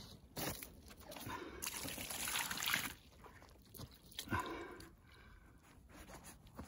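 Water trickling and sloshing, with a louder rushing splash about two seconds in and a short sharp splash a little past four seconds.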